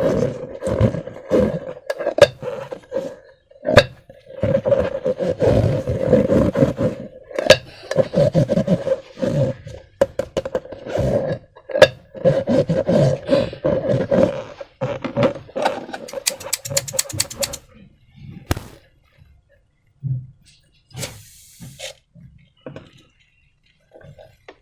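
Rubber balloon and slime being squeezed and worked by hand: a dense run of squeaky, squelching rubber sounds that stops about two-thirds of the way through, followed by a few scattered soft handling noises.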